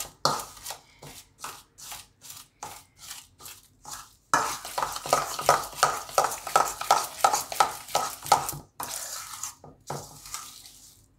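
A spoon beating ghee and powdered sugar in a stainless steel bowl, creaming them together: a run of rhythmic scraping strokes against the metal. The strokes are sparser and quieter at first, then come faster and louder, about four or five a second, from about four seconds in, and ease off again near the end.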